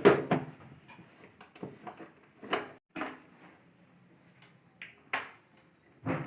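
Plastic water-purifier filter parts being handled: a few scattered knocks and clicks over a faint low hum.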